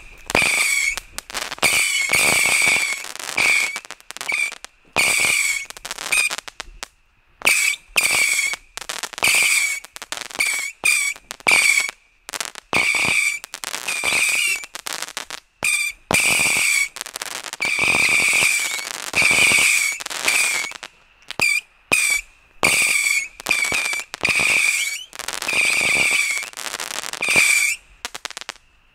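Whistling fireworks (Heuler) going off in a fast series: one shrill, warbling whistle after another, about one a second, each lasting under a second with a rushing hiss.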